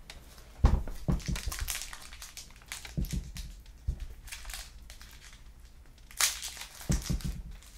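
Handling noise from a camera being adjusted and repositioned: irregular rustling and crinkling broken by several knocks and low thumps on the microphone, the sharpest a little under a second in.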